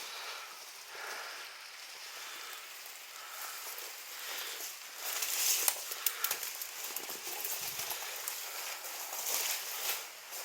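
Irregular rustling and crackling of footsteps through dry undergrowth and debris, with scattered sharp crackles and a louder burst of crackling about five and a half seconds in.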